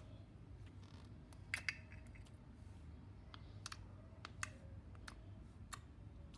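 Slime being squeezed and poked by hand, giving faint, scattered small clicks and pops, with a louder pair of pops about one and a half seconds in.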